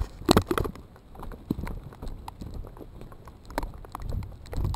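Footsteps walking over grass and leaves, an irregular run of soft steps, with a cluster of louder knocks in the first half-second from the camera being handled.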